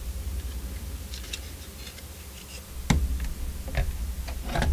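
Small clicks and taps from handling the partly disassembled Canon 60D DSLR body, its buttons being pressed, with a sharper click about three seconds in and a cluster of clicks near the end. A low steady hum runs underneath.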